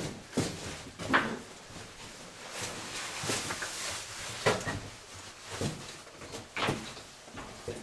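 People scrambling through a cave passage: shoes scuffing and scraping on rock, with clothing rustling. Several louder scrapes come at irregular intervals.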